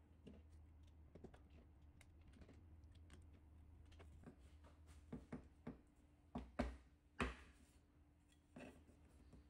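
Faint clicking and tapping of 3D-printed plastic dowel pins being pushed into holes in a printed plastic plate. A few sharper knocks come in the second half.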